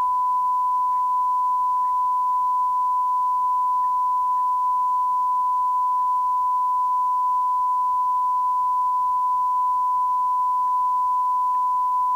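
A steady 1 kHz sine tone, edited over the sound track and held unbroken at one level.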